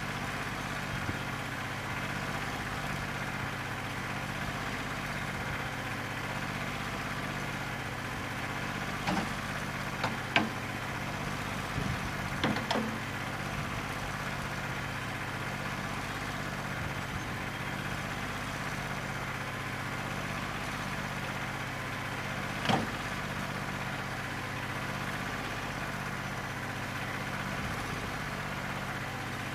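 New Holland 1320 compact tractor's three-cylinder diesel engine running steadily, not firing evenly on all cylinders because of a bad injector. A few sharp metallic clanks come in a cluster about ten seconds in and once more later on.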